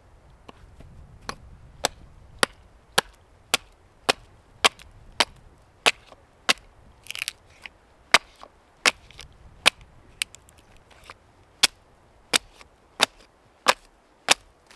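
Wood being chopped with a blade: a steady run of sharp strikes, a little under two a second, with a brief scatter of smaller knocks about seven seconds in.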